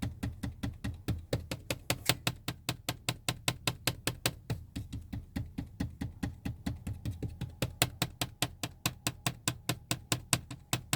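Loose seat trim piece rattling: a fast, regular clicking, about five clicks a second, over a low steady hum.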